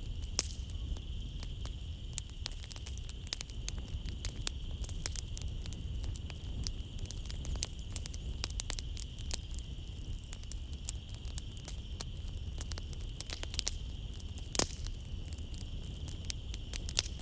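Wood fire crackling in a fireplace: irregular snaps and pops, with a sharper pop about three-quarters of the way through, over a steady high hum of night insects.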